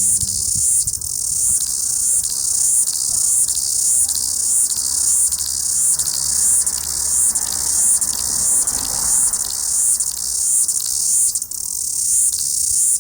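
An insect's call, cricket-like, repeating in an even rhythm of high-pitched pulses, just under two a second, each swelling and then cutting off.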